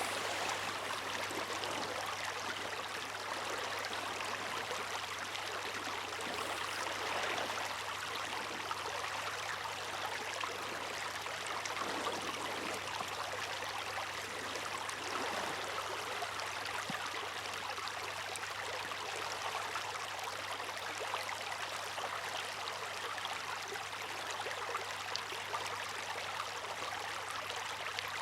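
Seawater rushing and splashing continuously at the shore, a steady wash with gentle swells, over a faint steady low hum.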